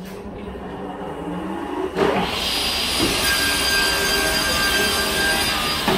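Vertical panel saw in a DIY store switched on about two seconds in, with a knock as it starts, then its motor and blade running at a steady high whine. A lower steady hum plays underneath from the start.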